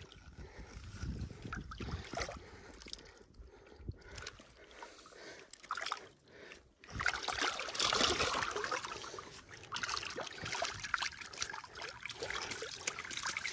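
Bass on a stringer moving and splashing in shallow water: soft sloshing at first, then louder splashing from about seven seconds in.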